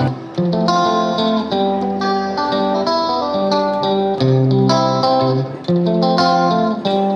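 Instrumental background music: a melody of held pitched notes over a lower accompaniment, changing note about every half second to second.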